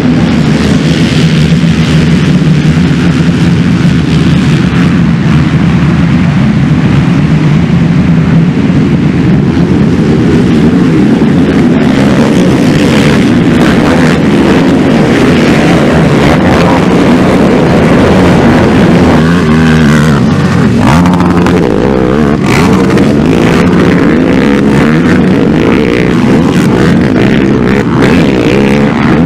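A pack of racing ATVs (quads) running hard together, many engines at once. Their engine notes rise and fall as riders accelerate, shift and pass close, with pitch sweeps about two-thirds of the way through and again near the end.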